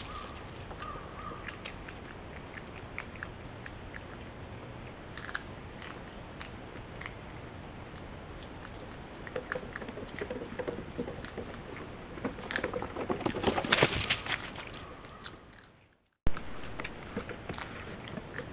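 North American river otters on a wooden boardwalk making scattered small clicks and crackles as they groom and move, building to a dense run of loud crackling about thirteen seconds in as they come close. The sound cuts out for a moment about sixteen seconds in.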